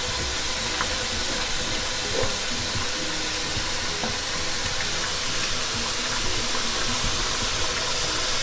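Steady sizzle and hiss of food cooking in pans on a gas hob: mushrooms in a pot giving off their water, beside a steaming pan of rice, with a few faint ticks.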